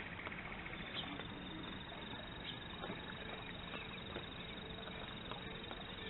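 Steady outdoor background hiss with a few faint, scattered taps.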